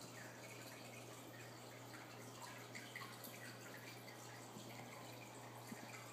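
Faint aquarium filtration: water dripping and bubbling softly in small irregular blips over a steady low hum.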